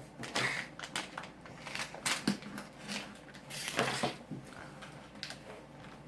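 Crinkling and rustling of a toy blind bag's wrapper being handled and opened, in irregular crackles with louder rustles about half a second and four seconds in.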